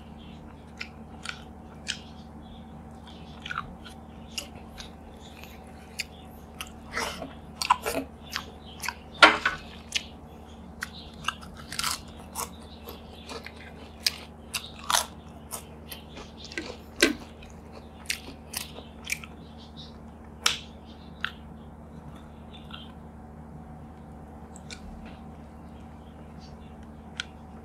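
Close-up eating sounds: crisp crunching and chewing of potato chips, a run of sharp separate crunches that is densest in the middle and thins out near the end, over a steady low hum.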